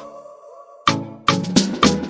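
Background music with a punchy drum beat and bass line. The beat drops out for most of the first second, then comes back in.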